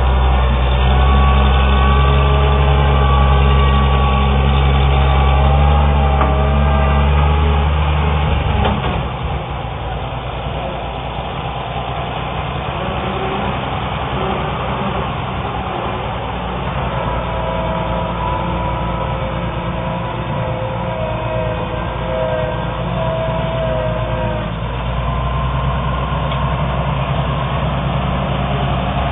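Oliver 770 tractor's six-cylinder engine running. About nine seconds in its steady note gives way to a rougher, quieter sound, and the steadier note comes back near the end.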